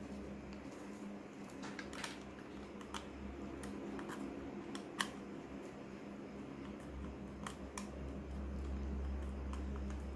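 Scattered small plastic clicks and taps as cable plugs are fitted into the ports of an iBoot Box battery-boot box, over a low steady hum.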